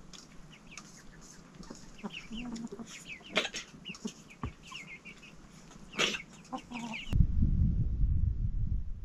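Chickens clucking, with many short high calls repeating. About seven seconds in it cuts abruptly to a loud low rumble.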